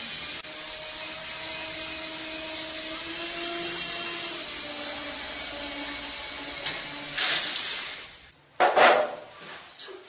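A tiny remote-control helicopter's electric motor and rotor whirring steadily, with a faint whine that wavers slightly in pitch. About eight seconds in the whirring cuts out and a short, loud burst of noise follows.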